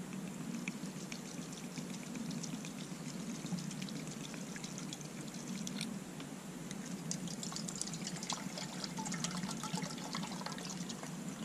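Water pouring steadily from a bottle into a cooking pot as a continuous trickle.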